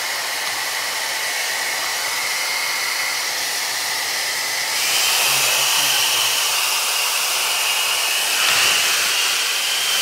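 1800 W ionic hair dryer with an AC motor and a diffuser fitted, running steadily: a rush of air with a motor whine on top. About five seconds in it steps up to a louder, higher-pitched whine, with a brief swell a few seconds later.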